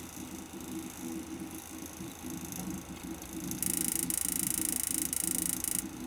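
Pump of a Cooler Master Seidon 120V all-in-one liquid CPU cooler making an abnormal noise: an irregular low churning throughout, joined about three and a half seconds in by a loud, rapid high-pitched buzzing rattle that lasts about two seconds. The owner wonders whether it is air trapped in the pump.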